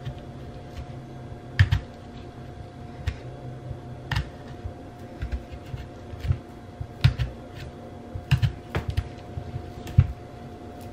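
A fork's metal tines stabbing into a raw sweet potato's skin over and over, giving an irregular run of short, sharp taps and clicks, some louder than others.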